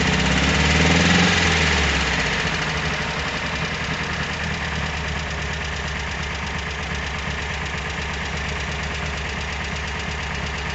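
VW Squareback's air-cooled flat-four engine running with a knock. It revs up briefly about a second in, then settles back to a steady idle.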